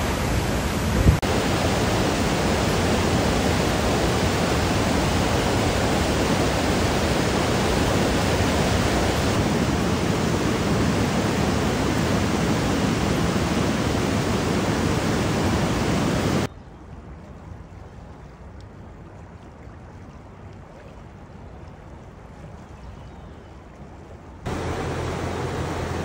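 Rushing water heard as several separate takes. First a waterfall crashing into its base for about a second, with a short thump. Then loud whitewater rapids pour around a boulder in a swollen creek, drop to a much quieter steady rush of water for about eight seconds, and near the end a broad river rushes over stones.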